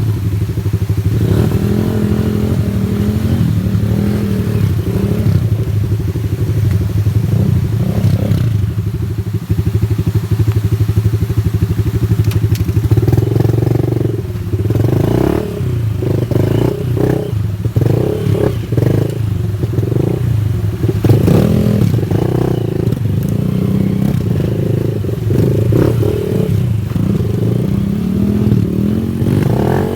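Honda Wave 110i's single-cylinder four-stroke engine running steadily, its note dipping and rising several times in the middle, with some clatter over it.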